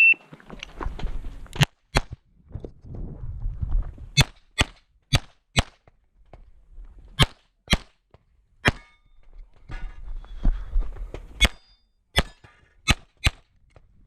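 Electronic shot-timer beep, then a 9mm competition pistol fired about thirteen times while the shooter moves through the stage. The shots come in quick pairs and singles with short gaps of movement noise between them.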